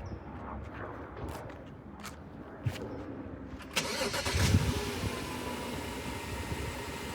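A few light clicks, then about four seconds in a BMW car engine cranks and starts, settling into a steady idle.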